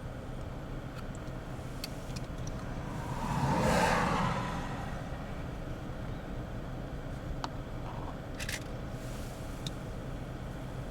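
Steady low engine hum, with a vehicle passing by: its noise swells and fades about three to four seconds in. A few faint clicks.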